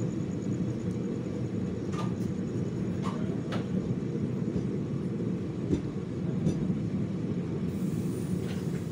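Passenger train running at speed, heard from on board the coach: a steady rumble of wheels on rail, with a few sharp clicks about two, three and three-and-a-half seconds in.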